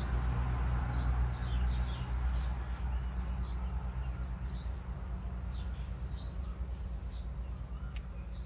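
Small birds chirping, short high calls every half second or so, over a low steady rumble that eases slightly toward the end.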